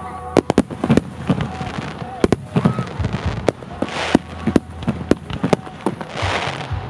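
Aerial fireworks going off: many sharp bangs of shells launching and bursting, several a second, with two spells of hiss about four and six seconds in.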